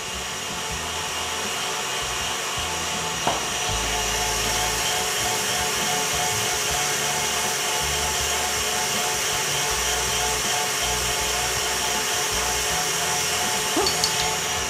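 Electric stand mixer running steadily at speed, its wire whisk beating eggs, sugar and vanilla into a thick foam for a sponge-cake batter. The motor gives a steady hum and whine.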